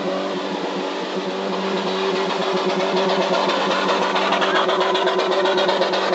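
Toyota Hilux pickup's engine running at steady revs under load as the truck churns through deep mud, with a fast, even pulsing that grows stronger after about two seconds.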